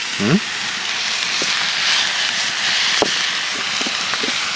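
Food sizzling in a pan over a campfire: a steady frying hiss, with a sharp click about three seconds in.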